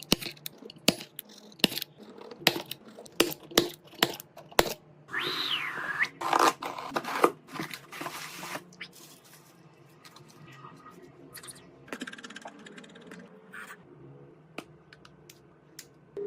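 A string of sharp clicks and taps, roughly two a second, then about three seconds of hissing noise with a whine that falls in pitch, followed by fainter scattered clicks.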